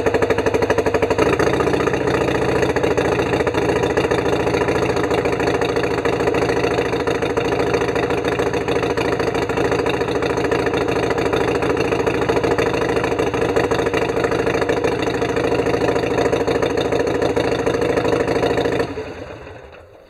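Harley-Davidson Sportster Iron 883's air-cooled V-twin engine running steadily at idle, then switched off about 19 seconds in. The owner suspects a spark plug of making it run a little rough.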